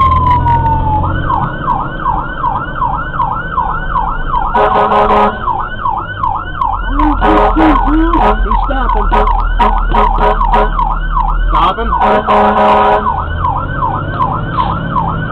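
Fire engine's siren winding down from a wail and then switching to a fast yelp, about three to four sweeps a second. Three horn blasts cut in, about 4.5 s, 7 s and 12 s in, with the truck's engine running underneath.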